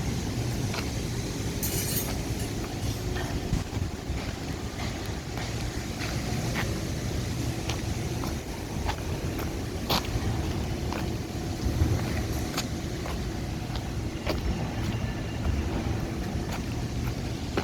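Construction-site noise during rebar work: a steady low rumble with scattered sharp clicks and knocks, one louder clack about ten seconds in.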